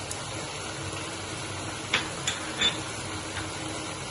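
Grated carrots frying in ghee in a nonstick pan, a steady soft sizzle, with three light ticks about two seconds in.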